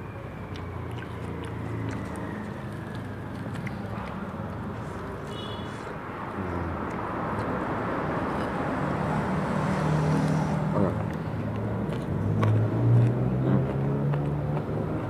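A person chewing and biting into crispy fried catfish with rice, with small crunches and clicks, over a low engine-like rumble that builds toward the middle and stays up to the end.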